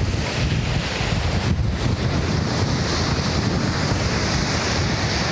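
Strong wind buffeting the microphone: a steady low rumble with a hiss over it.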